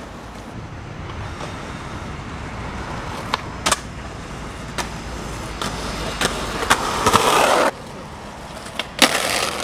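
Skateboard wheels rolling on rough concrete, a steady rumble, broken by sharp clacks of the board popping and landing. A loud scraping stretch of about a second comes past the middle, and another scrape near the end.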